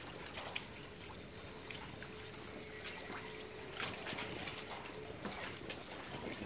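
River water lapping and trickling against a floating platform and its pilings, with a few small splashes and knocks.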